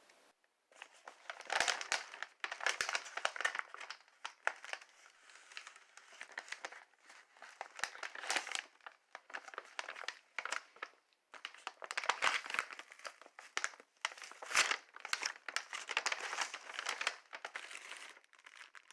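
Meal-kit ingredient packages being opened and handled, with irregular bursts of crinkling and rustling packaging.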